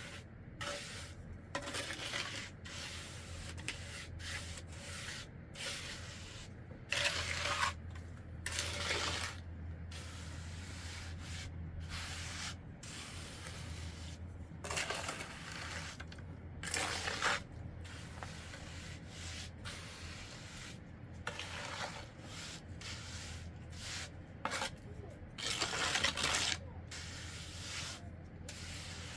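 Irregular scraping and rubbing strokes, some longer and louder than others, over a steady low hum.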